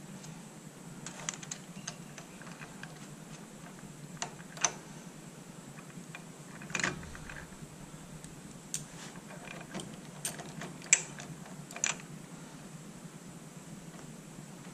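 Scattered light metallic clicks and taps of hand tools and foot-peg hardware being handled, with a few sharper knocks around 5, 7, 11 and 12 seconds in, over a low steady hum.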